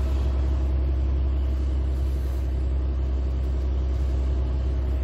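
Fishing boat's engine running steadily under way, a constant low rumble, with the rush of the churning wake behind the stern.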